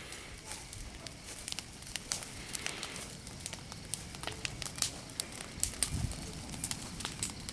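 Wood bonfire crackling, with irregular sharp pops, and a dull low thump about six seconds in.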